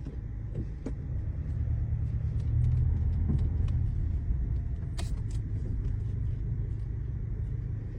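Car driving over a rough, rutted mountain road: a steady low rumble that grows louder in the middle, with small clicks and rattles throughout and one sharper knock about five seconds in.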